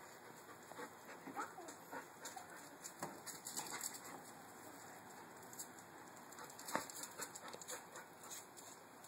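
A dog whining faintly in short, high calls, with scattered light clicks and ticks.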